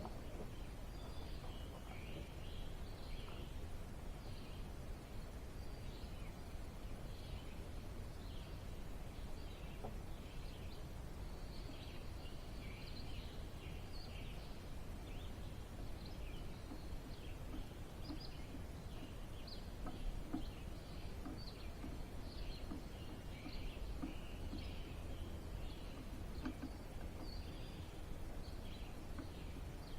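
Small birds chirping and singing over and over, short high notes, over a steady low background rumble, with a few faint knocks about two-thirds of the way through.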